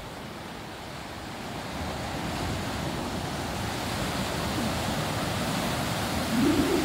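Ocean surf breaking and washing over shoreline rocks, a steady rushing wash that swells a couple of seconds in. Wind buffets the microphone near the end.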